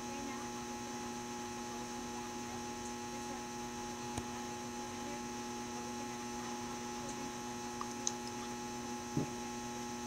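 Steady electrical mains hum, several fixed tones at once, with a few faint clicks and a soft knock near the end.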